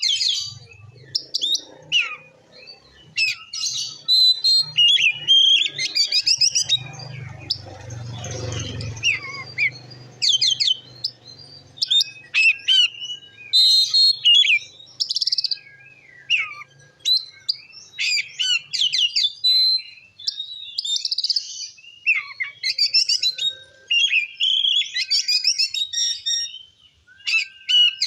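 Oriental magpie-robin singing a loud, varied song of clear whistles, quick sweeps, chirps and trills, phrase after phrase with only short breaks. A low rumble swells beneath the song around seven to nine seconds in.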